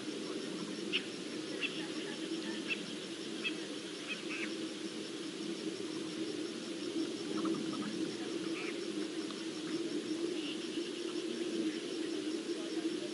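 Outdoor bush ambience: a steady low rumble with short, scattered bird chirps and a faint insect chirping at an even pace.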